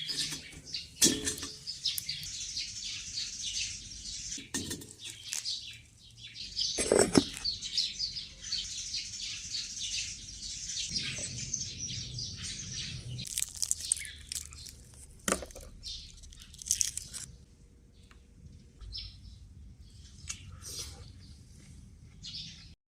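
Small birds chirping and twittering, with a few sharp knocks and clatters in between; the chirping thins out near the end.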